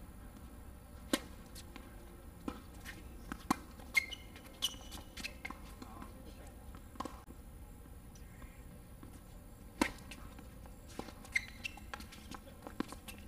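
Tennis balls struck by rackets and bouncing on a hard court during a doubles rally: sharp pops one to three seconds apart over low background noise.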